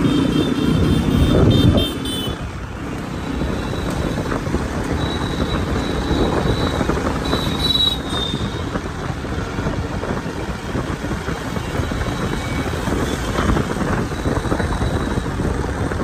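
Road and traffic noise heard while riding on a two-wheeler: engine and tyre noise with wind buffeting the microphone, louder for the first two seconds. A thin high-pitched tone comes and goes a few times.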